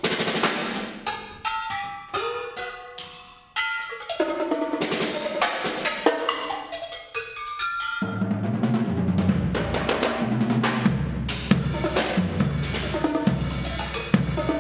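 Live percussion duet on drum kit and table-top percussion. For the first half it is separate strikes with ringing pitched notes. About eight seconds in it turns into dense, continuous drum-kit playing, with bass drum and cymbals.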